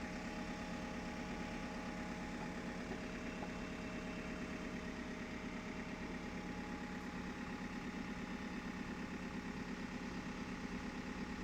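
JCB backhoe loader's diesel engine idling steadily with an even pulse.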